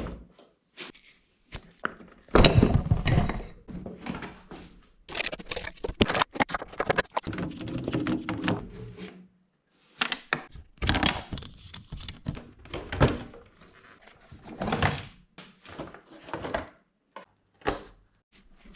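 Hollow knocks, clicks and rattling of plastic fairing panels and their fasteners being handled and pulled off a Honda CBR600F motorcycle, with the loudest clatter about two seconds in.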